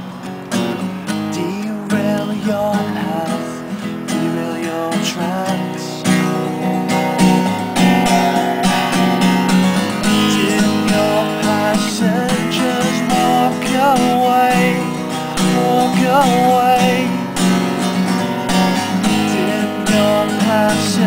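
Acoustic guitar strummed steadily as song accompaniment, with a man singing over it from a couple of seconds in.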